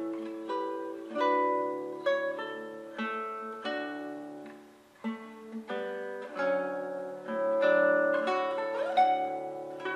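Background music on a plucked string instrument: a run of plucked notes and chords, each left to ring and fade, with one note bent upward near the end.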